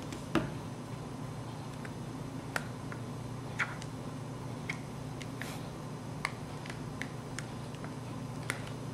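Scattered small plastic clicks and taps, roughly one a second and sharpest about a third of a second in, as fingers fumble at a BlackBerry Curve 8900's battery cover trying to slide it off. A faint steady low hum lies underneath.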